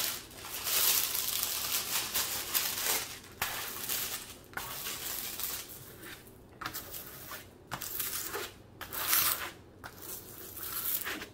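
Clear plastic cover film on a diamond painting canvas crinkling as it is lifted and laid back down, then a ruler scraping across the film to flatten it and press out air bubbles. The sound comes in uneven bursts, loudest in the first few seconds and again about nine seconds in.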